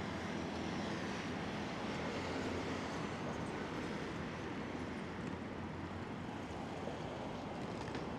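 Steady city street traffic noise: a continuous low rumble of passing vehicles, swelling slightly in the first few seconds.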